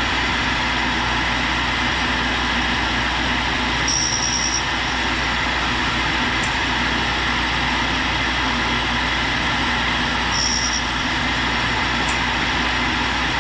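Tool and cutter grinder running steadily while its wheel grinds the cutting end of a 4-flute roughing high-speed steel end mill. Two brief high-pitched squeals come about six seconds apart.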